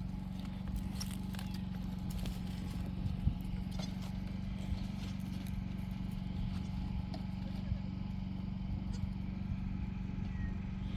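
Scattered light knocks and steps of goats moving about over the ground, over a steady low hum.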